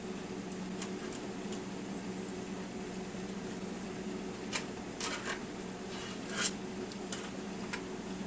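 Scattered light clicks and scrapes of a fork and a pie server against a pie tin as a slice of pie is worked loose, the clearest a few seconds in, over a steady low hum.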